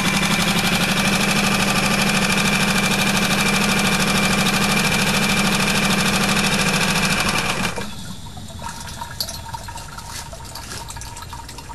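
Tohatsu 3.5 HP single-cylinder four-stroke outboard running steadily in a test barrel of water, then shut off with its stop button about two-thirds of the way in. Quieter water sounds and small clicks follow.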